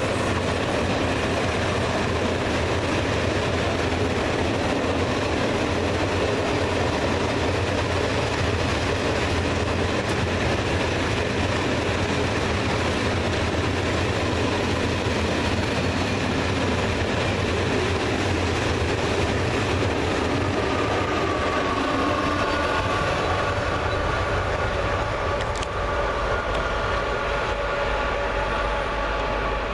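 Heavy freight train of hopper wagons rolling past, pulled by electric locomotives, with a steady rumble of wheels on rail. About twenty seconds in, a steady whine of several tones joins the rumble as another electric locomotive draws near.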